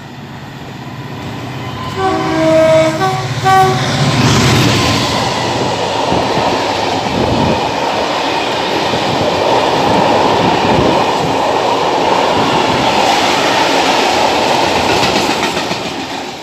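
Diesel freight locomotive approaching and sounding its two-tone horn about two seconds in, then passing beneath with its engine running. A long rake of open hopper wagons follows, rolling past on the rails with a steady loud noise that eases near the end.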